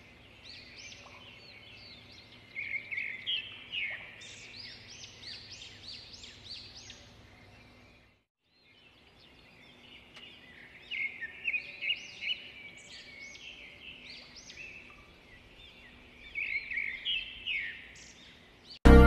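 Small birds chirping, many quick short calls overlapping, loudest in clusters about three seconds in, around eleven seconds and near the end, with a brief break about eight seconds in. Loud music cuts in at the very end.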